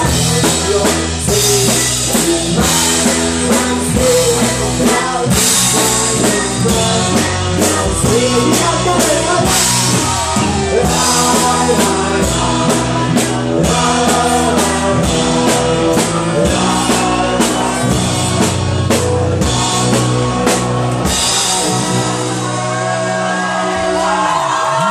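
A live band playing loudly through a PA: drum kit, sustained low notes and a singing voice. The drums stop a few seconds before the end, leaving held notes, and a low note slides downward right at the end.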